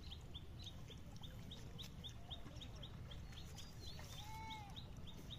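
Faint bird calls: a short high chirp repeated evenly about four times a second, and a single lower, arched call about four seconds in.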